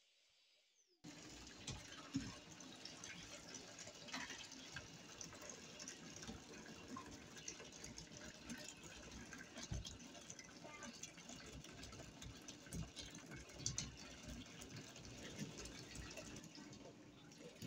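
Water running from a tap into a sink: a faint, steady rush with scattered small clinks and knocks, starting abruptly about a second in.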